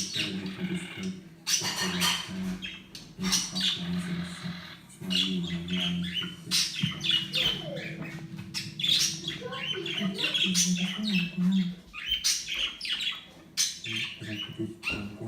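Pet cockatiel squawking and chirping in many short, sharp calls throughout.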